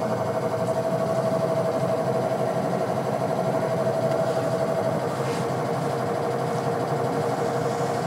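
Whirlpool 6.5 kg top-loading washing machine spinning its drum at speed, a steady motor whine and hum that steps down slightly in pitch about five seconds in. The motor is running properly on its refitted original capacitor.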